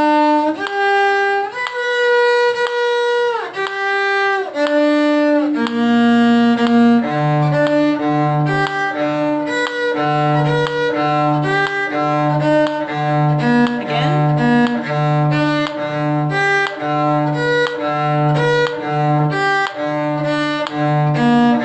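Bowed string instruments, led by a violin, playing a B-flat major arpeggio exercise on one string. The notes move up and down in slow quarter notes at first. From about a third of the way in the pattern turns quicker, with every other note a repeated lower string note.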